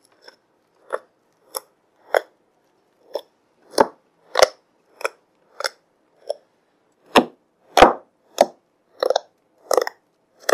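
Freshly made fluffy slime of glue and shaving foam, just activated with borax solution, being kneaded and pressed by hand: a string of short, wet squishes, roughly one every half second or so, the loudest about eight seconds in.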